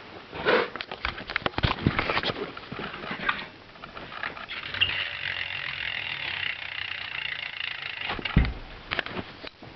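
Stolen Revolver BMX wheel's hub freewheeling as the wheel is spun: a run of ratchet clicks, then a fast steady buzz for about three seconds. A single thump near the end.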